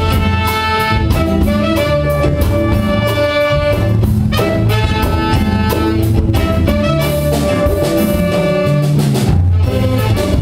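Band playing an instrumental passage of Brazilian popular music, held melody notes over a steady drum beat.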